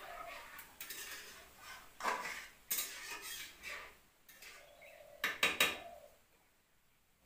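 Metal spoon scraping and clanking against a steel kadhai while stirring semolina cooking in water, with a quick run of sharp clinks about five seconds in. It goes quiet near the end.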